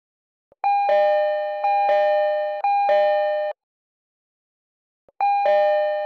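Recreated JR East E231-series-type train door chime, the signal for the doors opening or closing: a clean high-low two-tone 'ding-dong' played three times, stopping after about three seconds. About a second later it starts again.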